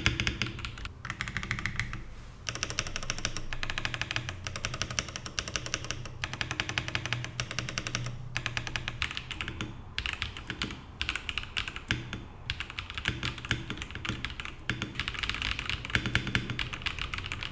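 Typing on an AKKO 5075B Plus gasket-mount mechanical keyboard, fully stock, with tactile blue switches and pre-lubed stabilizers: fast runs of key clacks in a rhythmic, fairly open sound, broken by a few short pauses.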